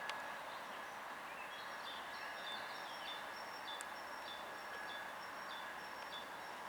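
A songbird singing a long string of short, high chirping notes over a steady faint outdoor hiss, with one sharp click right at the start.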